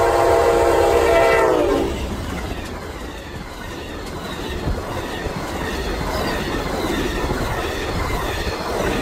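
Amtrak diesel locomotive's multi-note horn blaring as it approaches, dropping in pitch as it passes and cutting off about two seconds in. Then the rumble and clickety-clack of double-deck Superliner passenger cars rolling by.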